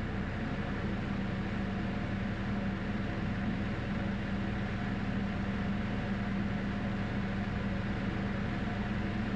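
A steady mechanical drone: a constant low hum with a hiss over it, unchanging in level.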